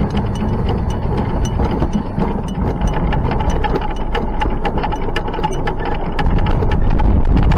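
Hunslet-built steam locomotive Y542 rolling slowly over track and pointwork: a steady low rumble with many irregular clicks and knocks from the wheels crossing rail joints and points, coming thicker toward the end, over a faint steady whine.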